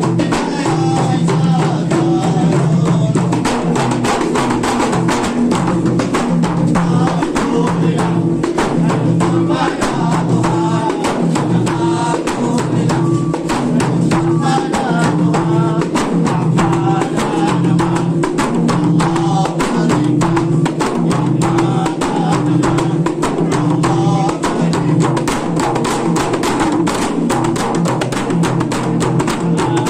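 Hadrah music: rebana frame drums struck in a fast, dense, steady rhythm, with voices singing a wavering melody over them.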